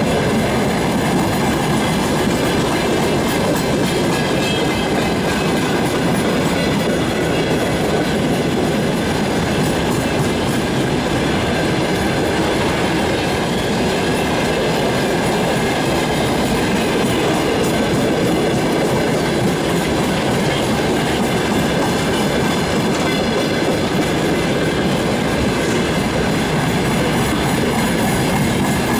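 Open-top freight wagons of a long freight train rolling past at close range: a steady, unbroken din of wheels running on the rails.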